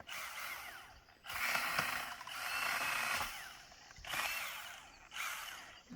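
Small mini chainsaw cutting through vine maple wood in about five bursts of roughly a second each, with short pauses between them. It is a fairly quiet, rasping cutting sound.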